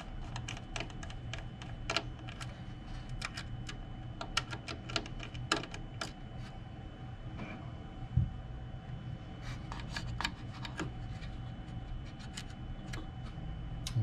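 Small, irregular clicks and taps of fingers and a small screwdriver on metal and circuit board as an M.2 drive is unscrewed and pulled from its motherboard slot. The clicks come in scattered runs over a faint steady hum.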